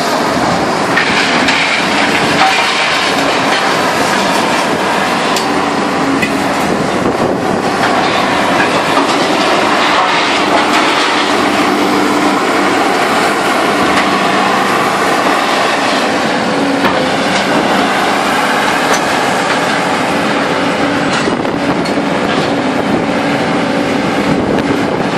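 Bonfiglioli Squalo 2000 inclined scrap shear at work, fed by a material handler's grab: loud, steady heavy-machinery noise with scattered metallic clanks, and a steady hum that grows stronger in the second half.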